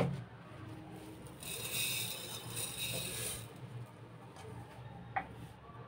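Granulated sugar poured onto steamed amla in a steel pot: a gritty hiss lasting about two seconds, a second or so after a sharp knock at the start.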